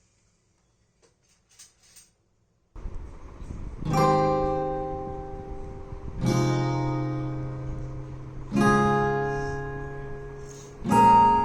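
Background music: slow acoustic guitar chords, each strummed and left to ring out, one every two seconds or so. It starts a little under three seconds in, after near silence broken only by a few faint clicks.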